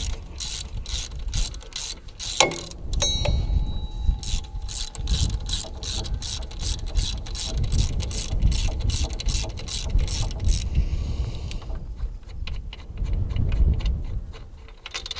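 Hand ratchet wrench clicking in a steady rhythm, about three clicks a second, as a stubborn bolt on the LS3 V8's alternator mount is worked loose. The clicking stops about two-thirds of the way through.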